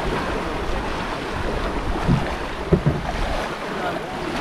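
Wind buffeting the microphone over the wash of lagoon water, a steady rushing noise with a low rumble, broken by a couple of brief louder sounds two to three seconds in.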